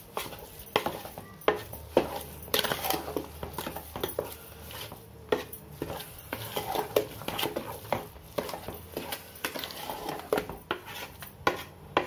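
A spatula scraping and knocking against the sides and bottom of a metal pot while stirring a thick mixture of grated coconut and sugar, in irregular strokes several times a second.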